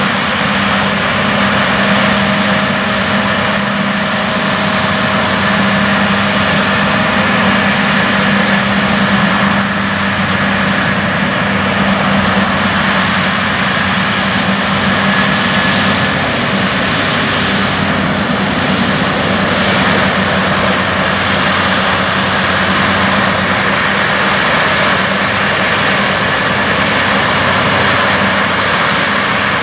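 John Deere X9 tracked combine harvester running under load while harvesting wheat: a loud, steady drone of engine and threshing machinery with an even low hum.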